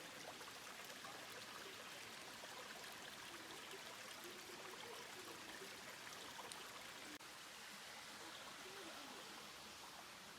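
Steady, faint rush of falling and running water from a waterfall and its creek, with a momentary dropout about seven seconds in.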